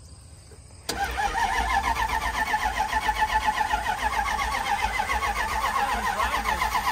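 Starter motor cranking the crash-damaged Dodge Ram 1500's V8, starting about a second in with a steady rhythmic churn; the engine turns but does not fire.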